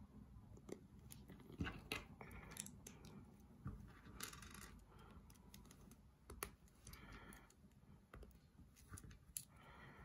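Faint clicks and taps of small plastic building bricks being handled and pressed together, with a few short rustles in between.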